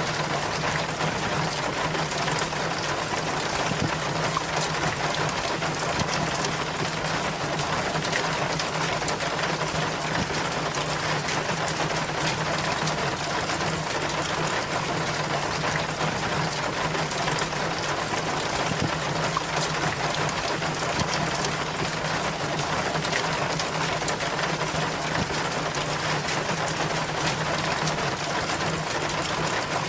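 Rain water steadily splashing and trickling down a rain chain, a constant even rush with a low steady hum underneath.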